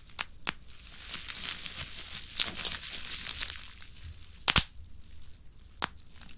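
Bubble wrap crushed and twisted by hand: a run of dense crackling pops, then a single loud sharp pop about four and a half seconds in and another near the end.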